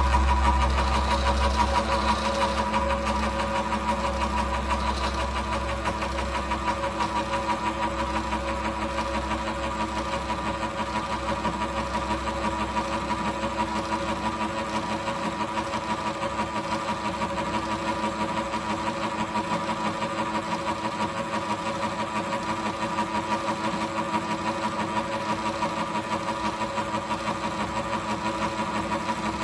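Atlas milling machine running steadily with a fast, even pulsing whir as the cutter mills a slot in a tool post blank. A low rumble beneath it fades away over the first half.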